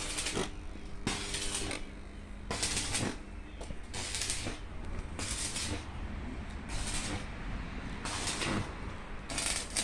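Rhythmic rasping or scraping strokes, about one every second and a half, over a steady low hum.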